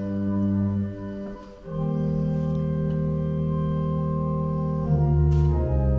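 Church organ being practised, playing slow held chords; the sound dips briefly and moves to a new chord about a second and a half in, and changes chord again near the end.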